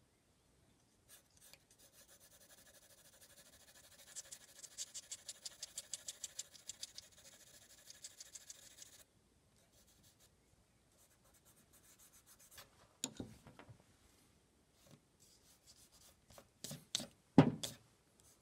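Graphite pencil shading on white card: quick, rhythmic back-and-forth scratching strokes, about four or five a second, for several seconds. After a pause come a few soft rubs and sharp knocks against the drawing surface, the loudest near the end.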